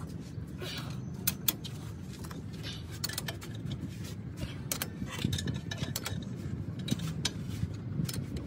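Scattered metallic clicks and clinks of hand tools and bolts on a tractor engine's cast-iron cylinder head during reassembly, over a steady low hum.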